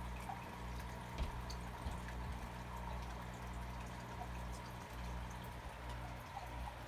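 Aquarium filter running: water trickling and dripping steadily over a low electrical hum. One soft knock about a second in.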